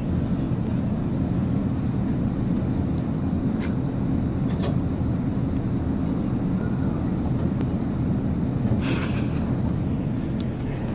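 Wind buffeting the camcorder microphone: a steady, rough low rumble with a few faint clicks and a brief rustle about nine seconds in.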